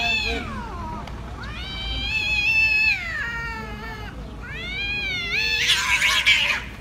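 Two cats in a standoff, yowling in long, wavering calls that rise and fall in pitch. Near the end the yowling breaks into a loud, harsh burst of hissing and screeching as the cats clash and grapple.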